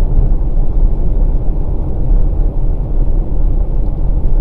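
Steady low rumble inside the cabin of a moving 2020 Volkswagen Passat Variant 1.6 TDI: tyre and road noise on a wet road.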